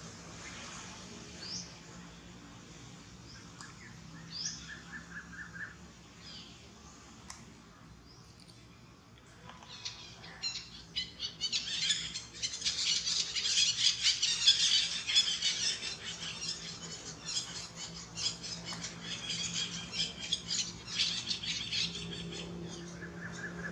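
Wild birds chirping outdoors, with a few short rising calls and a quick repeated trill. From about halfway a louder, rapidly pulsing high chorus takes over.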